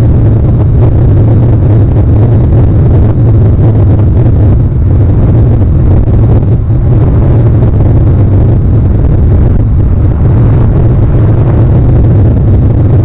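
Wind buffeting an outdoor camera microphone: a loud, steady low rumble with no distinct calls or events.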